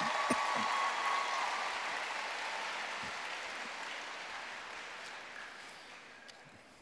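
Audience applause, loudest at the start and gradually dying away over several seconds.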